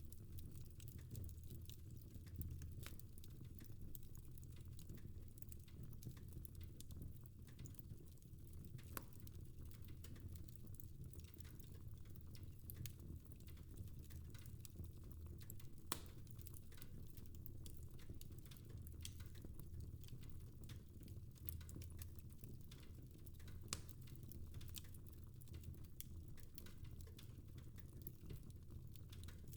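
Fireplace fire crackling faintly, with irregular sharp pops and snaps over a steady low rumble.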